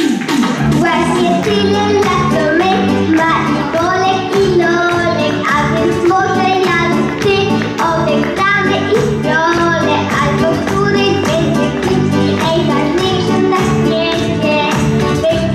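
A young boy singing into a microphone over instrumental accompaniment with a steady beat.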